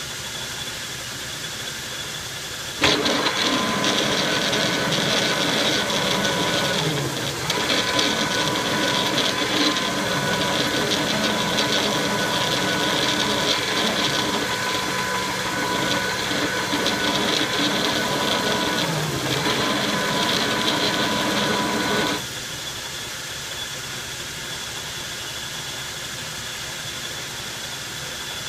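Logan metal lathe running while a 1-inch drill cuts into the spinning nut blank. The cut sets in about three seconds in as a louder whine with a steady high ringing tone, eases briefly twice, and stops about 22 seconds in, leaving the lathe running on its own.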